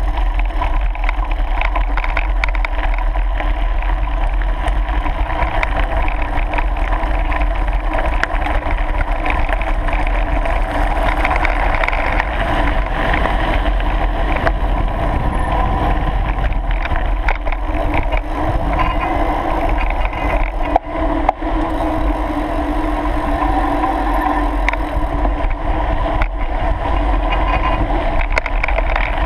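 Wind rushing over the microphone of a bike-mounted action camera, with mountain bike tyres rolling over a gravel track and small rattles from the bike. The noise is steady and loud, with a short dip about three-quarters of the way through.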